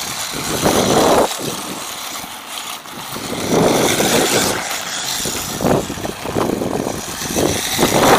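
WLToys 18401 1:18 RC buggy's small brushed electric motor and tyres running over snow and ice, the sound swelling and fading as the throttle is worked.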